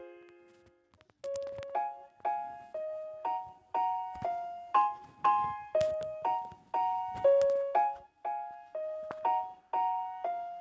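Background piano music: a melody of single struck notes, about two a second, resuming after a short pause about a second in.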